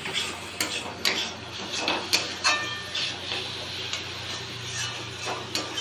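Flat metal spatula scraping and knocking against an aluminium kadhai while stirring a thick fried masala paste: irregular clicks and scrapes, over a steady low hum.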